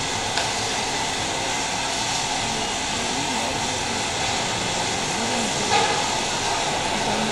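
Steady loud hiss, with a short click about half a second in and a louder one near six seconds.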